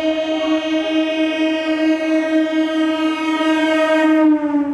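Indian Railways EMU local train's horn sounding one long steady blast as the train runs through the station at speed; about four seconds in, as the front of the train passes, the pitch drops slightly.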